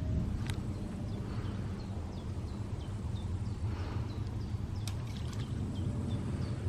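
Riverside outdoor ambience: a steady low rumble with faint short high chirps repeating about twice a second and a few light clicks.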